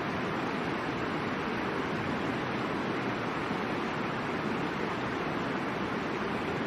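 Steady rushing of the Middle Fork of the Boise River flowing over rocks, an even water noise with no change in level.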